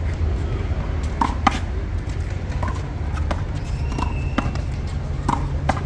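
Handball rally: a small rubber ball smacked by hand and slapping off a concrete wall, about eight sharp smacks at irregular intervals, over a steady low rumble.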